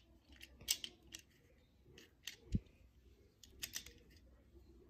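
Small clicks and taps of a toy car being fitted onto a plastic toy train truck by hand, scattered through, with one duller knock about two and a half seconds in.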